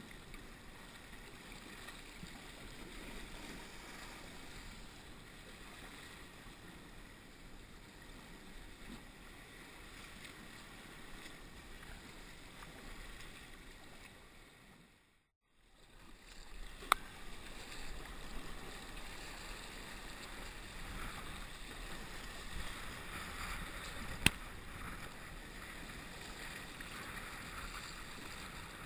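Northshore Atlantic sea kayak under paddle in choppy sea: steady splashing and lapping of water from the paddle strokes and the hull, with wind. About halfway through the sound dips almost to silence and returns, and later two sharp clicks stand out.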